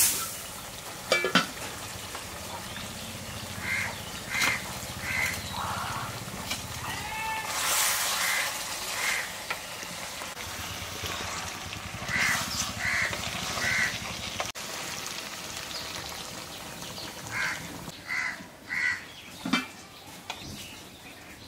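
A bird calling in runs of three short calls, four times over, against a low steady background. A few sharp knocks come about a second in and near the end.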